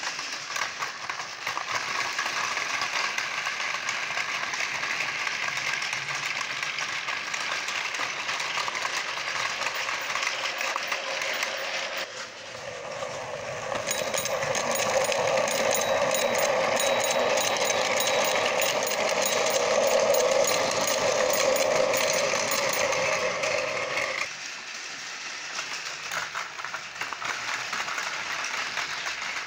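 Battery-powered Tomica toy trains running on plastic track: small electric motors whirring steadily, with wheels rattling over the track joints. Just under halfway through it grows louder with a steady whine, then drops back about four fifths of the way through.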